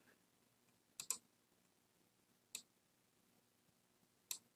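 Four computer mouse clicks over near-silent room tone: a quick pair about a second in, another a second and a half later, and one near the end.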